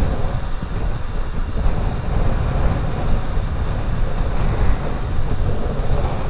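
Wind rumbling on the microphone over surf, with waves breaking and washing around shore rocks.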